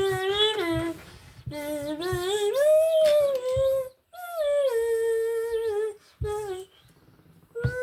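A child humming a wordless tune in several held, gliding phrases, with short breaks between them.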